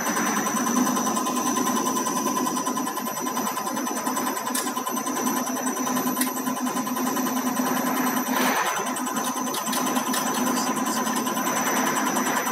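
Common rail injector test bench running steadily: its motor-driven high-pressure pump holds the rail at 160 MPa while a Bosch common rail injector fires, giving a steady hum with a fine, rapid ticking over it.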